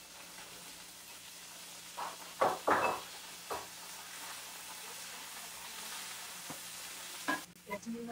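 Chopped vegetables sizzling in a frying pan, with a few loud scrapes and knocks of a wooden spatula stirring them about two to three seconds in. The sizzle cuts off suddenly near the end.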